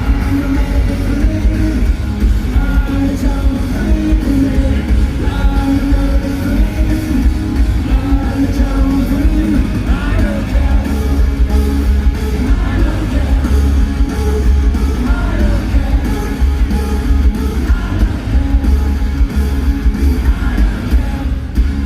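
A live rock band playing loudly, with a singer, guitars and heavy bass.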